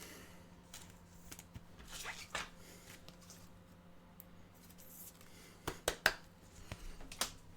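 Trading cards being handled: faint rustling and soft taps, with a few sharp clicks a little past the middle and again near the end.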